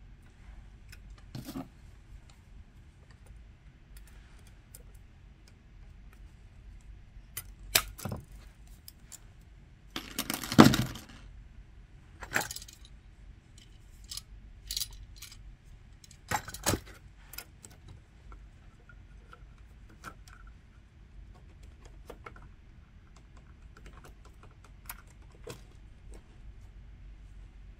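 Scattered metallic clicks and clinks of hand wiring work: insulated wires, plastic wire nuts and tools handled at a metal electrical box, with the loudest rattle about halfway through.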